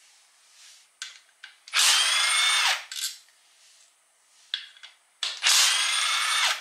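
Cordless power tool spinning out the 10 mm bolts of a CVT's lower pan: two runs of about a second each, one about two seconds in and one near the end, its pitch rising slightly during each run. Light clicks of the socket and bolts come between the runs.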